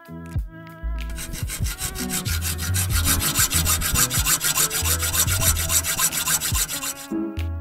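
A hand hacksaw cuts through the leg of a Pletscher bicycle center stand clamped in a bench vise. It makes quick, even back-and-forth rasping strokes that start about a second in and stop near the end.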